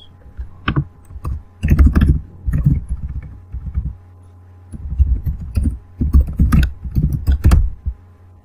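Laptop keyboard being typed on: several quick bursts of keystrokes with short pauses between them, each key landing with a click and a dull thud.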